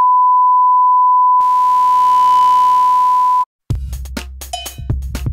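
A steady 1 kHz line-up test tone of the kind played under colour bars cuts off abruptly about three and a half seconds in. After a brief gap, electronic music starts with sharp percussive drum-machine hits.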